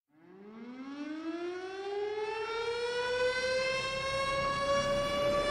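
A siren winding up: a single tone that starts faint and glides up in pitch, then levels off into a steady, louder wail.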